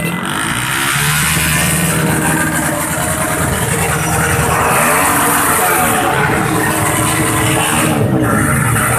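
Several motorcycle engines running together in a convoy, their pitch rising and falling as they are revved, about three times.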